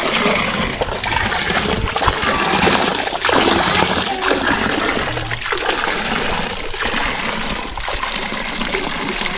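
Village fountain's spout pouring a steady stream of water into a trough, splashing into the pooled water.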